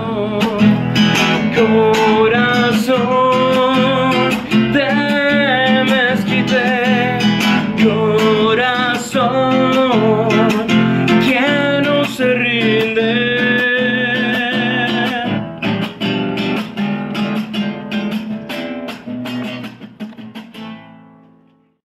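Strummed acoustic guitar playing the closing chords of a trova song, with a wavering sung vocal line over it and no clear words. The music fades out gradually over the last several seconds.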